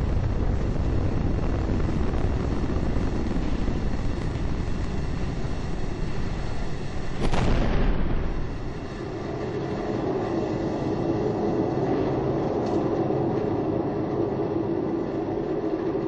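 Space Shuttle ascent noise picked up by an onboard camera: a steady deep rumble from the solid rocket boosters. About seven seconds in, a short louder rush falling in pitch marks booster separation. After it the deep rumble drops away, leaving a steadier, higher drone.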